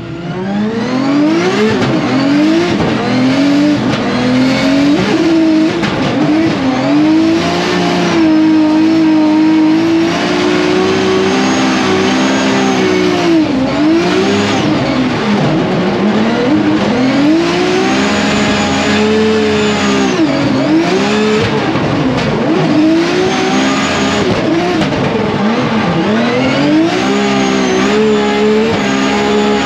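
Drift car engine at high revs, its note repeatedly climbing and dropping as the throttle is worked through a run, with tyre squeal at times.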